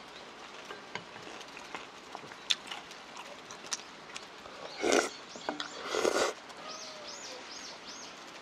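Close-up mukbang eating sounds: a mouthful of sea squirt bibimbap being slurped and chewed, with two louder slurps about five and six seconds in. A few quick high chirps follow.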